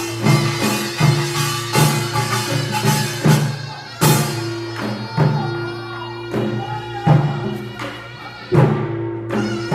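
Korean nongak (pungmul) percussion band playing: a repeated rhythm of sharp metallic gong strikes and drum strokes, with a steady held tone underneath.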